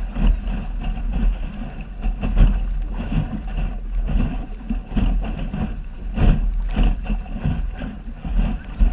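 Wind buffeting the microphone of a camera on a small sailing dinghy, over water rushing along the hull. Waves slap irregularly against the bow as the dinghy pounds through chop.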